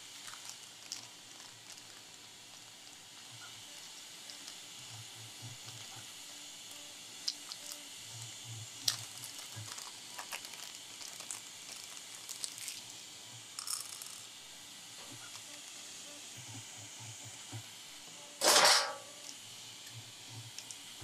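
Small parts of a Sovol SV-07 Plus 3D printer's bed assembly clicking and tapping as it is worked by hand, with the bed springs being swapped for fixed spacers, over a steady hiss. Near the end there is one loud rasping noise lasting about half a second.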